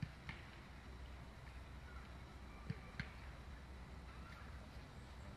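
Faint outdoor ambience of players warming up on a grass training pitch: a steady low rumble like wind on the microphone, with a few short sharp taps, two pairs of them, from the players' movement.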